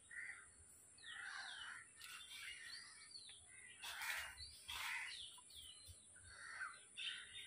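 Faint birdsong: many short, sweeping chirps from several birds, over a steady high-pitched hiss.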